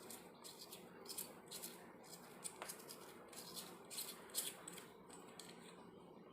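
Faint, irregular clicks and scrapes of small plastic parts being handled: the battery compartment of a Boya BY-M1 lavalier mic's power unit being opened and a battery put in.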